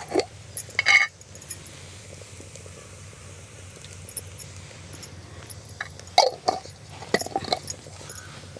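Light glass clinks and taps from handling a small glass jar of ghee as it is opened and poured into a clay pan. A couple of clinks come near the start and a cluster comes about six to seven and a half seconds in, over a faint steady low background.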